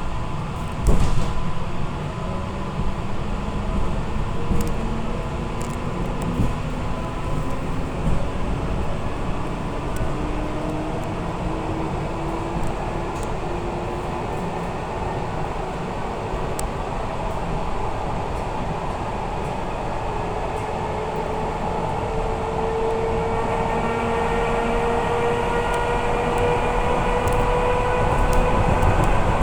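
Suburban electric train gathering speed: the traction motors' whine rises steadily in pitch over the low rumble of the running gear, growing louder near the end. A couple of knocks sound about a second in.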